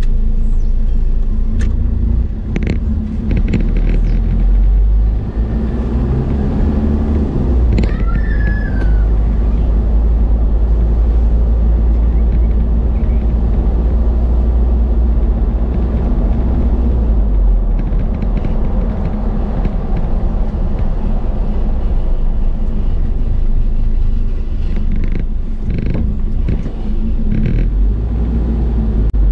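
Car interior driving noise: a steady low rumble of engine and tyres on a paved road, with a few light knocks from bumps and a brief high chirp about eight seconds in.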